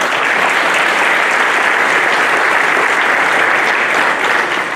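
Crowd applause, a steady dense clapping that dies away at the very end.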